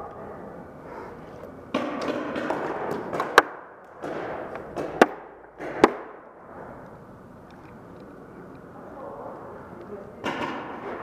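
Three sharp cracks of paintball fire, the second about a second and a half after the first and the third under a second later, over the rustle and knocks of a player moving fast with a heavy riot shield.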